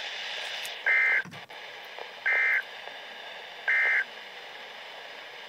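Three short two-tone EAS data bursts, each about a third of a second long and a second and a half apart, over faint radio hiss. They are the Emergency Alert System end-of-message (NNNN) signal on NOAA Weather Radio, marking the end of the alert.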